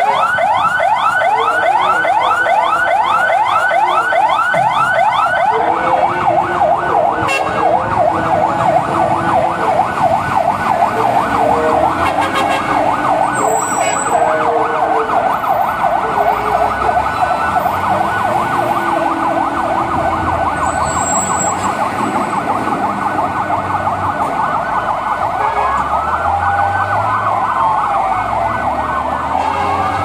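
Fire truck sirens sounding on a turnout: a fast electronic yelp, about six sweeps a second, overlapped by further siren tones, with a slower wail rising and falling near the end. Truck engines run underneath in the second half.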